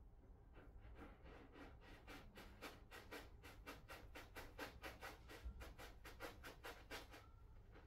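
A cat digging in granular litter in a litter box: a faint run of quick scraping strokes, about four a second. It starts about half a second in and stops shortly before the end.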